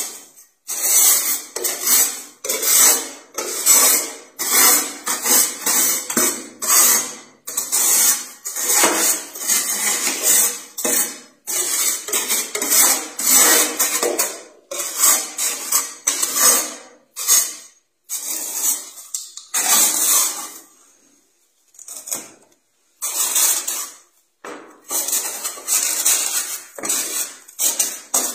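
A metal tool scraping thick frost off the inside wall of a freezer, in quick repeated strokes of about half a second each, with a brief break about three-quarters of the way through.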